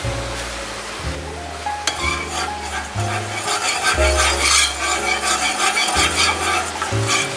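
Metal ladle stirring milk in a non-stick pan, with a rapid scraping and swishing against the pan that starts about two seconds in and stops near the end. Background music plays throughout.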